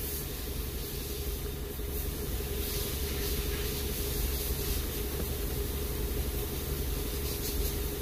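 A steady low mechanical hum with hiss, with a steady tone on top.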